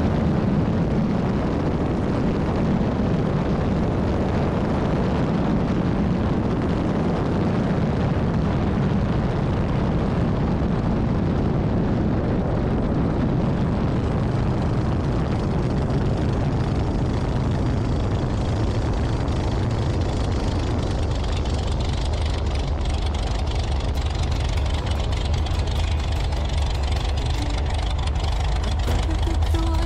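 Light single-engine propeller aircraft landing on a grass strip: a steady low engine hum under a rush of airflow that thins out as the aircraft slows on its roll-out, with small knocks in the later part as the wheels run over the grass.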